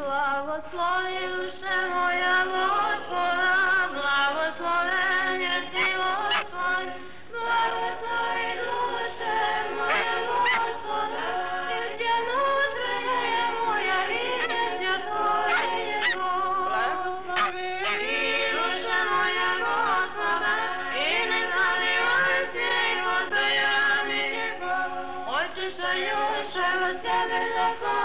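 Choir singing, several voices in harmony with a wavering tone, with a brief break about seven seconds in.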